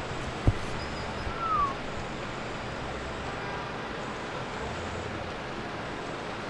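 Steady city traffic rising from a busy square several floors below. About half a second in there is a single sharp knock, and near 1.5 s a short falling squeak.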